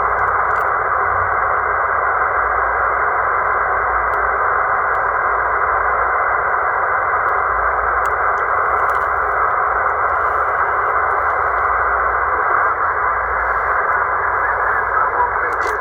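C Crane CC Skywave SSB receiver's speaker hissing with steady static, with no station audible. The hiss is narrowed to a thin band of pitch by the radio's sideband filter.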